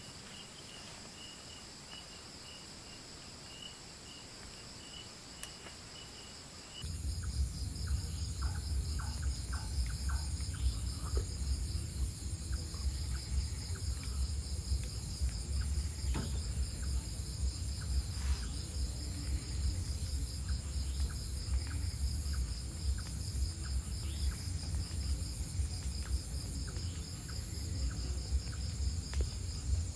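Night insects, crickets, trilling steadily in pulsed high-pitched choruses. About seven seconds in the sound grows louder with a low rumble underneath and scattered light clicks and taps.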